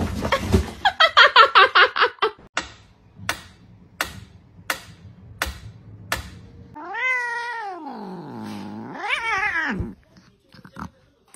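Cats scuffling: a thump, then a fast string of short cries. Then a mechanical pendulum metronome ticks five times at an even beat. Last comes a cat's long drawn-out meow that falls in pitch and then rises sharply.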